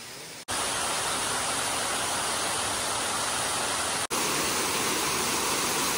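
Steady rushing of a small waterfall, cut in abruptly about half a second in and broken by a sharp cut about four seconds in.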